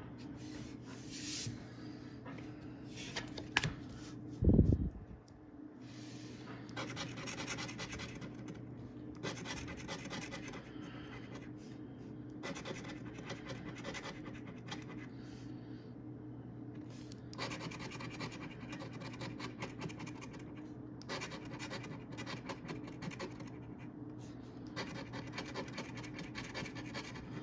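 A coin scraping the coating off a paper scratch-off lottery ticket, in stretches of a few seconds with short pauses between. A dull thump about four and a half seconds in.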